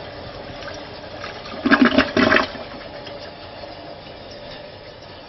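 Toilet flushing: water rushing steadily through the bowl, with a louder surge about two seconds in.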